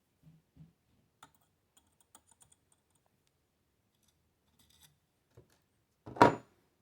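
Faint clicks and taps of small metal parts being handled during AR-15 lower receiver assembly, then a short loud clatter about six seconds in.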